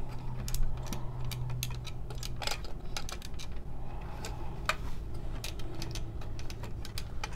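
Hard plastic clicking as the joints and wings of a Maketoys Howling Meteor transforming robot figure are worked by hand into a pose: a string of irregular sharp clicks.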